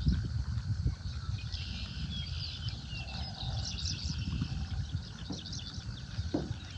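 Birds chirping with many short, high notes over a steady low rumble of wind on the microphone.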